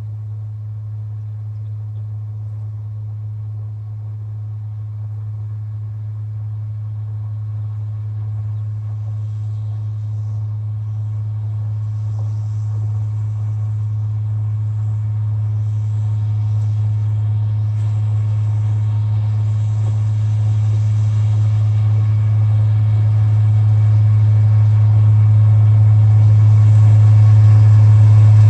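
A road-rail truck running along the railway track toward the listener: a steady low engine hum that grows louder throughout as it comes closer, with higher running noise joining about a third of the way in.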